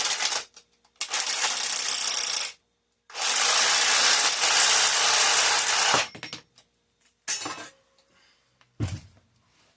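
Bus bar fitting on a battery bank: three loud bursts of harsh hissing, scraping noise, each lasting a second or more, then a few short, light metal clinks as parts are set on the cell terminals.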